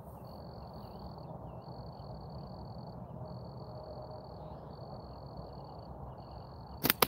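Crickets trill steadily in runs of about a second with short gaps. Near the end comes the slingshot shot: the rubber bands are released with two sharp, quick snaps, sending a load of three 8 mm steel balls.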